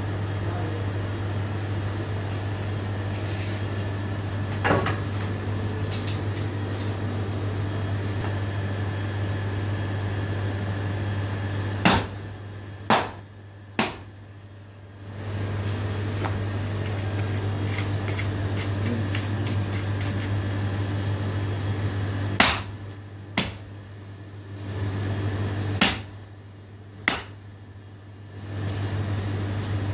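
A heavy 3 kg forged butcher's axe chopping through beef ribs into a wooden chopping block, in sharp single chops grouped in clusters of three and four. A steady low hum runs underneath.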